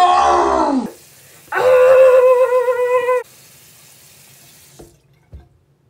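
A woman's loud cry of dismay that falls in pitch, then a longer wail held on one pitch, at her nose ring lost down the sink drain. Two faint clicks follow near the end.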